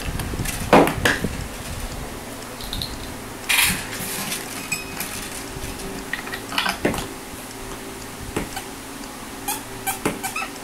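Scattered metallic clinks and clicks of a guitar string and Floyd Rose bridge hardware being handled during restringing, the loudest about a second in. A steady low hum runs underneath.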